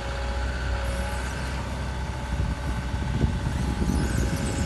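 Doosan DX140LC excavator's four-cylinder Perkins diesel engine idling steadily: a low even hum with a faint steady whine over it.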